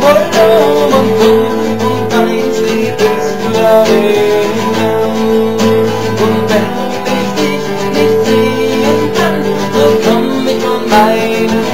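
Acoustic guitar played in a steady rhythm, chords ringing with regular strokes.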